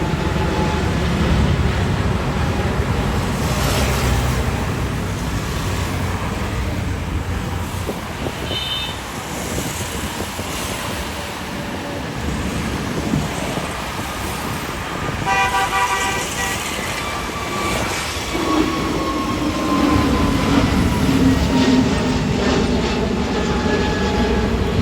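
A steady mechanical rumble with two horn toots: a short high one about a third of the way in and a longer one just past the middle. After that comes a slowly falling whine.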